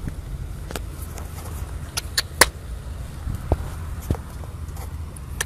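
Handling noise and footsteps from someone walking with a phone over wet, muddy ground: a steady low rumble with scattered sharp clicks and knocks.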